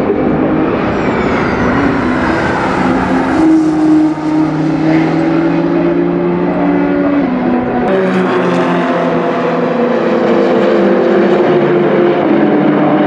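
Audi R18 e-tron quattro LMP1 race car's 4.0-litre V6 turbodiesel running at speed on track, its engine note stepping up and down in pitch. About eight seconds in the sound changes abruptly to a thinner engine note.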